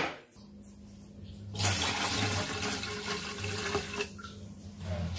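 Liquid poured from a plastic pouch into a stainless steel pot of milk, a steady splashing pour from about a second and a half in that eases off about four seconds in. A sharp click comes at the very start, and a low hum runs underneath.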